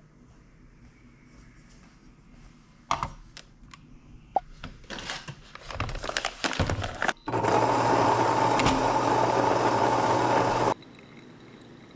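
A paper bag of coffee beans rustles, with light clicks and clatter. Then an electric coffee grinder runs steadily for about three seconds and cuts off suddenly.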